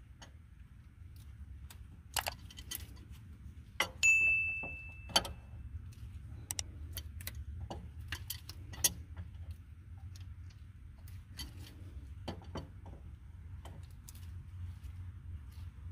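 Large adjustable wrench clicking and clinking against the fill plug of a semi truck's differential as the plug is tightened. Scattered sharp metal clicks, with one clang about four seconds in that rings for over a second.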